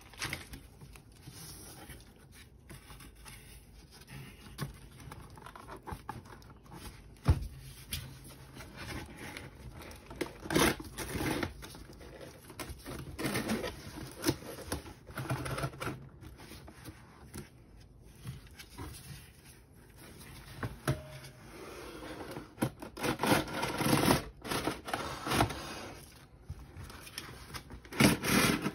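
Packaging being handled and unwrapped: rustling, crinkling and scraping in irregular bursts, with a sharp knock about seven seconds in.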